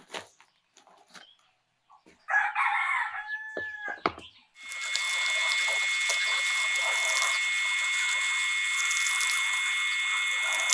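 A rooster crows once, for about two seconds. Soon after, a power tool starts and runs steadily with a high whine.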